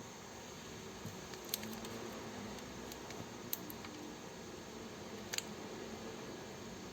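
Faint steady room noise with three small sharp clicks, about a second and a half in, halfway through, and near the end.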